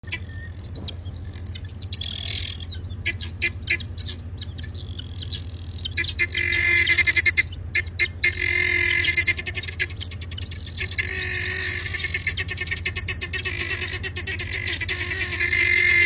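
Birds giving rapid, repeated alarm calls at a lion. The calls come in scattered bursts at first and become a dense, loud chatter from about six seconds in, over a low steady hum.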